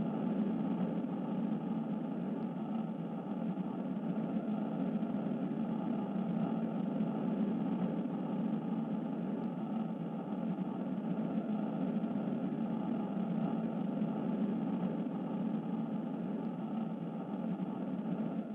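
Steady low droning rumble, an even engine-like noise without a tune or beat, fading in at the start.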